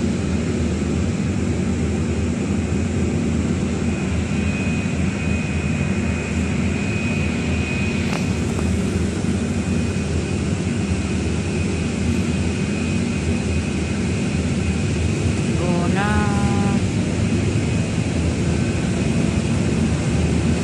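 Steady engine and road noise inside a city bus cabin as it drives, with a faint high whine for a few seconds in the middle. A brief voice is heard about three-quarters of the way through.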